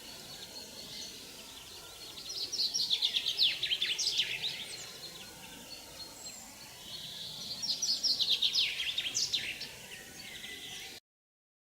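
A songbird singing two rapid trilled phrases of downward-sweeping notes, about five seconds apart, over a faint steady background hiss.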